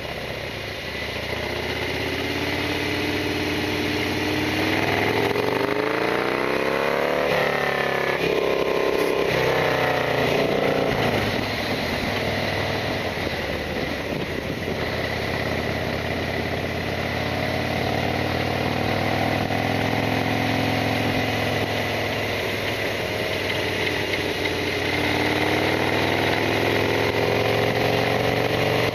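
Harley-Davidson Sportster XL1200R's air-cooled V-twin engine under way: it revs up, gear changes follow about seven and eight seconds in, the revs drop back, then it runs on with the pitch slowly rising and falling with road speed.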